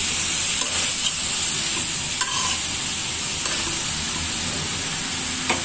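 Shredded cabbage and potatoes sizzling in hot oil in a metal wok while a metal spatula stirs and tosses them, with a few light scrapes and clicks of the spatula on the pan over a steady hiss.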